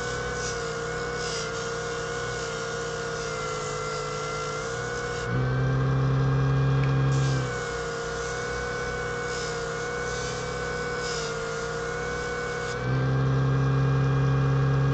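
Parkside 140-watt bench disc sander running steadily, its motor hum with a gritty scrape as a piece of epoxy resin is sanded on the 240-grit disc. The hum gets louder about five seconds in for two seconds, and again near the end when the piece is lifted off the disc.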